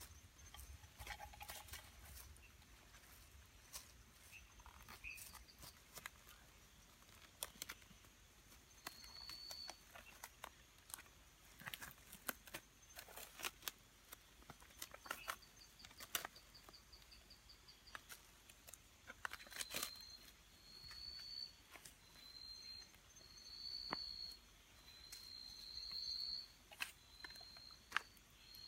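Faint crinkling and clicking of a plastic meat package being handled and unwrapped, with scattered small sharp clicks. From about a third of the way in, an insect chirps in short high trills, repeating about once a second near the end.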